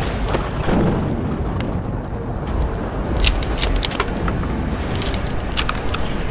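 Designed battlefield ambience: a steady low rumble with distant booms, and a scatter of sharp clicks and small metallic rattles in the second half.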